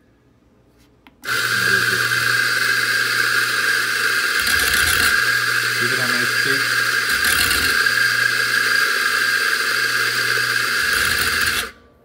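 Mazzer Mini electronic espresso grinder running and grinding coffee straight into a portafilter: a steady motor hum with a higher grinding whir. It starts about a second in and runs for about ten seconds, stopping just before the end.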